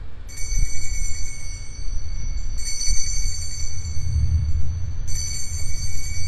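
Altar bells rung three times, about two and a half seconds apart, each ring a bright high jingle that lingers until the next. They mark the elevation of the chalice at the consecration. A steady low rumble runs underneath.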